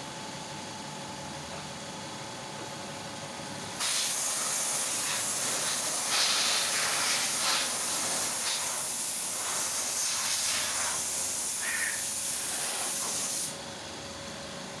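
Air paint spray gun hissing as it sprays high-temperature paint onto a cast globe valve; the spray starts suddenly about four seconds in and cuts off sharply near the end.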